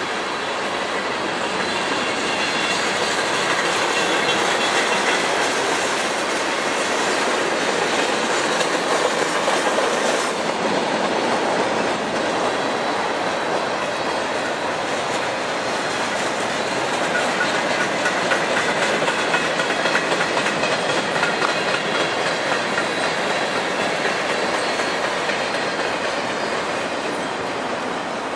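Freight train cars rolling past close by: steady, loud noise of steel wheels on rail, with a rhythmic clickety-clack as the wheels cross rail joints.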